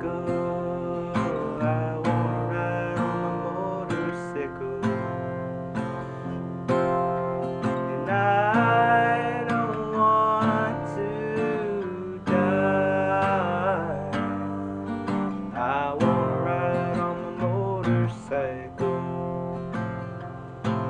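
Acoustic guitar music: a strummed accompaniment with a melody line over it that bends in pitch.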